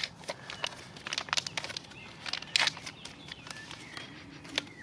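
Brown plastic pouch from an MRE ration being torn open and handled, giving irregular crinkling and crackling rustles. The loudest rustle comes about two and a half seconds in.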